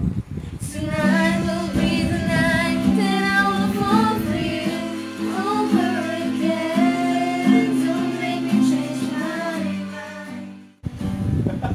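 Young women singing a slow melody in unison, accompanied by strummed acoustic guitar and ukulele. The music cuts off suddenly about a second before the end, then strumming starts again.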